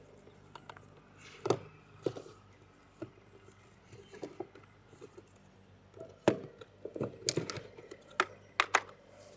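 A heavy 30 amp RV power cord and its plug being compressed and pushed back into the trailer's cord opening (the mouse hole): scattered knocks and clicks of cable and plug against the compartment. A sharp knock comes about a second and a half in, another about six seconds in, then a quick run of clicks and knocks near the end.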